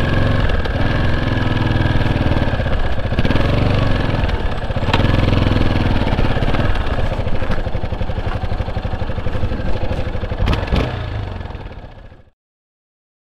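Motorcycle engine running, its revs rising and easing, fading out to silence near the end.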